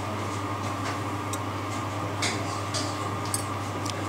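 A few scattered light clicks of a metal fork and spoon against a ceramic dish and plate as pineapple slices are lifted and laid down, over a steady low hum.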